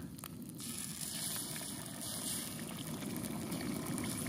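Eggs poured from a cup into hot oil in a frying pan over a gas burner, frying with a steady sizzle that grows slightly louder toward the end.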